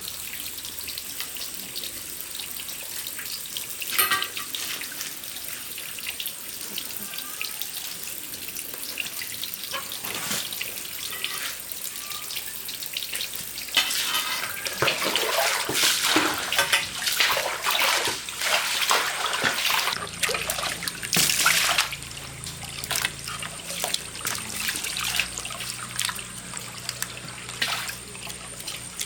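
Water running from a tap and splashing, as at a sink during washing, with scattered knocks and clinks; it grows louder and busier about halfway through.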